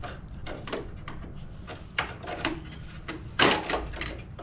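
Clicks and knocks of plastic as a screwdriver pries wiring clips off the back of a plastic truck grille, with a louder knock about three and a half seconds in.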